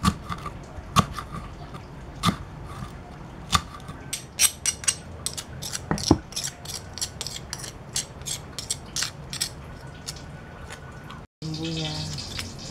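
Large knife chopping spring onion on a wooden board, single strokes about a second apart. Then a faster run of clicks and knocks as a stone pestle grinds paste in a flat stone mortar (cobek and ulekan).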